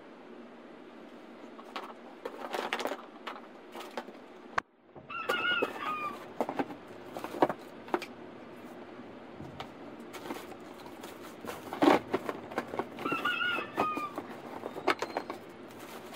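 Plastic wrapping and cardboard rustling, with clicks and knocks, as pressure washer parts are handled and lifted out of their shipping box. A short wavering call sounds twice in the background.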